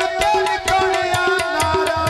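Punjabi folk music accompanying goon mahiye: a held melody line that bends a little in pitch, over quick hand-drum strokes and deep bass drum beats.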